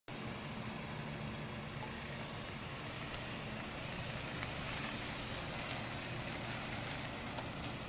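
A 2008 Chrysler Sebring's 2.4-litre four-cylinder engine idling steadily, under a steady hiss, with a few faint clicks.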